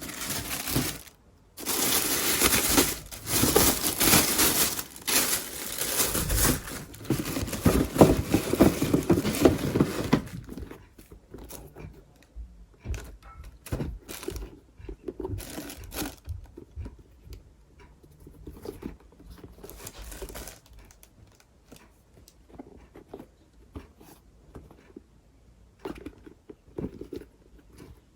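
Packing paper crinkling and rustling as it is handled in a sneaker box. It is dense and continuous for about the first ten seconds, then thins to lighter, scattered rustles and taps.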